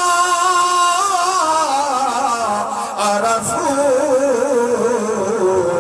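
A man chanting a Quranic verse in melodic recitation through a loudspeaker system. He holds a note at first, then moves into long wavering runs that slowly descend in pitch.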